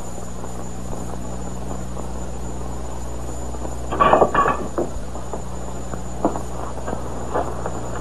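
Steady low electrical-sounding hum with background hiss, the noise floor of an old TV soundtrack, with a brief louder sound about four seconds in.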